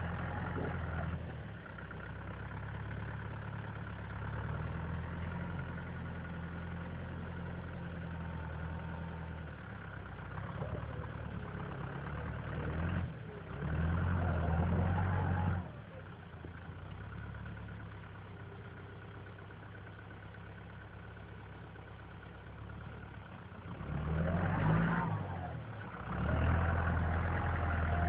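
Lamborghini Cross 70 tractor's diesel engine running steadily while its front loader works snow, rising under load in louder spells about halfway through and again near the end.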